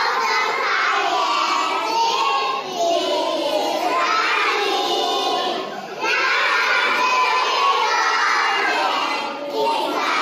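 A group of young children singing loudly together, in phrases with short breaks between them.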